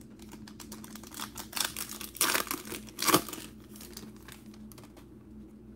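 A foil Bowman Chrome trading-card pack wrapper crinkling and tearing as it is opened by hand, a cluster of crackles about two to three seconds in, over a faint steady hum.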